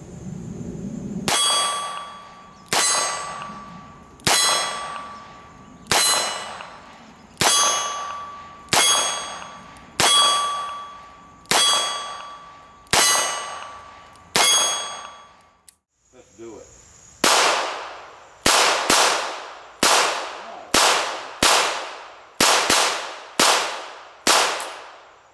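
A Smith & Wesson Model 617 .22 LR revolver fired ten times, about a second and a half apart, with a steel target ringing after each hit. After a short break comes a faster string of about ten shots with no ring.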